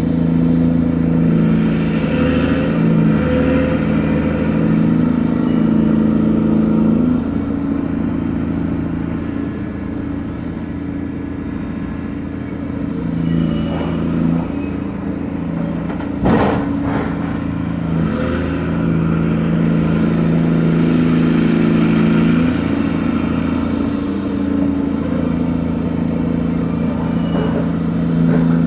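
Cargo-handling machinery of a grab-crane aggregate carrier (gut ship) running steadily, its engine note shifting as the load changes, with a single sharp clank about halfway through.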